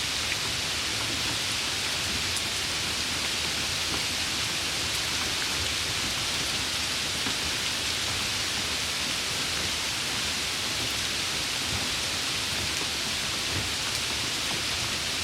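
Heavy rain falling in a steady, dense hiss with no letup.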